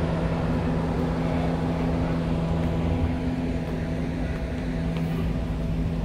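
Steady low drone of a car ferry's machinery, with a constant two-note hum over a rumbling wash of noise.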